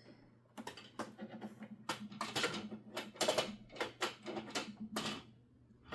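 Hard plastic clicking and clattering as a sewing machine's snap-on extension table and parts are handled and pushed into place: about a dozen irregular sharp clicks and knocks.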